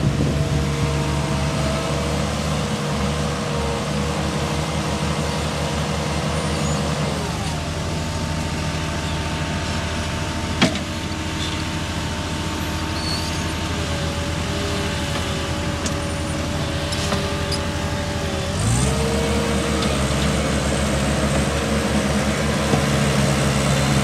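Caterpillar skid steer loader's diesel engine running steadily as the machine drives and works dirt, its engine and hydraulic note shifting in pitch a few times. A single sharp click sounds near the middle.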